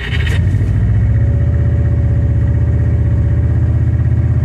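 Subaru WRX STI's turbocharged flat-four engine firing up and then running steadily at about 2,000 rpm with an even, rapid low pulsing rumble.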